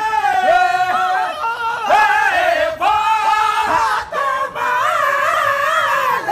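Men singing a Sindhi molood, a devotional song in praise of the Prophet, in long held, wavering melismatic notes, with more than one voice overlapping at times.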